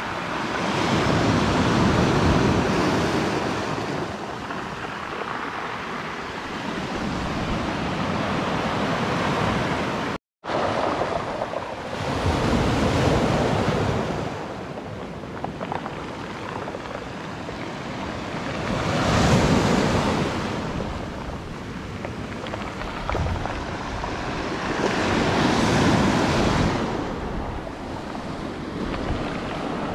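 Sea waves breaking and washing up the beach, swelling and fading roughly every six seconds. The sound cuts out completely for a moment about a third of the way in.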